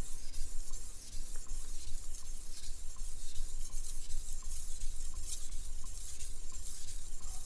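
Kitchen knife blade stroked back and forth across a whetstone with light, smooth strokes, a steady scraping rasp: the first sharpening passes on a dull edge.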